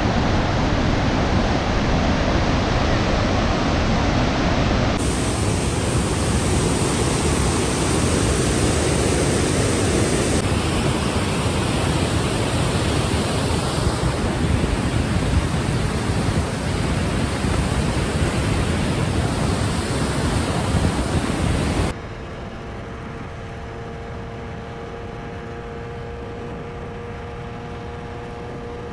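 Heavy wind rush on the microphone of a moving motorbike, a steady dull roar. About 22 seconds in it drops sharply to a quieter steady hum with a few held tones.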